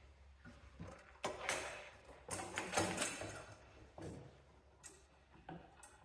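Fuel tank being handled and set into its holder on a Cub Cadet 1650 garden tractor's engine: a series of short knocks, scrapes and rattles of the tank against its bracket, the loudest in the first half.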